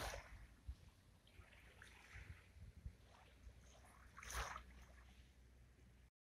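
Faint small waves lapping on a pebble shore over a low wind rumble, with a slightly louder wash at the start and another about four seconds in.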